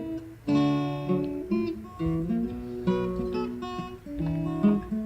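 Background music: acoustic guitar, notes and chords plucked and strummed one after another.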